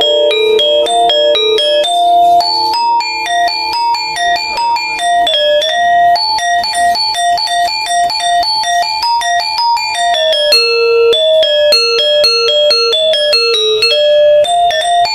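Balinese gangsa, a bronze-keyed metallophone, playing the polos part of a kebyar piece: a fast, unbroken run of single struck notes, each ringing briefly into the next.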